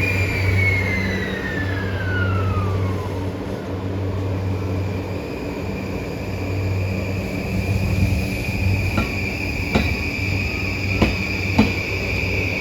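JR E235 series 1000 electric train pulling away, with a steady low hum. A high tone falls away over the first three seconds and a steady high whine follows. From about nine seconds in come the first sharp clacks of the wheels over rail joints, a few at a time and slowly getting closer together.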